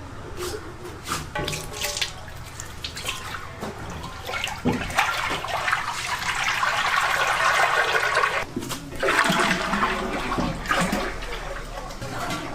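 Rushing, splashing water with scattered knocks, louder in the middle stretch and with a fresh surge about nine seconds in.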